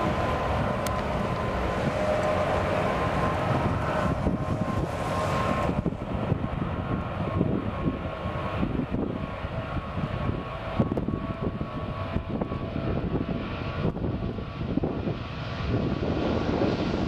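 Boeing 777 twin-jet airliner's engines running at high power on the runway: a steady jet rumble with a whine and hiss over it. About six seconds in, the whine and high hiss fall away and the low rumble carries on.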